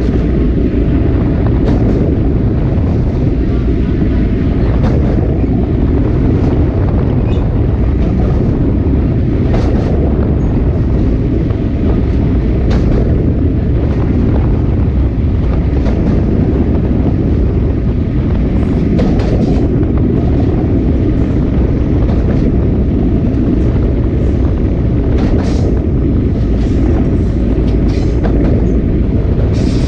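Sagano Romantic Train's SK200 passenger car running along the track: a steady, loud wheel-and-rail rumble with irregular clicks and clacks from the wheels.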